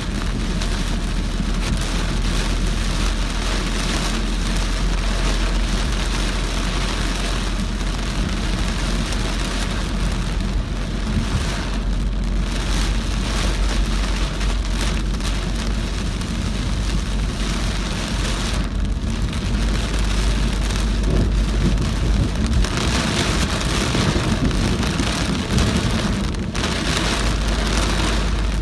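Heavy rain pelting a moving car, a dense steady hiss over the low rumble of the car and wet road. The hiss thins briefly three times.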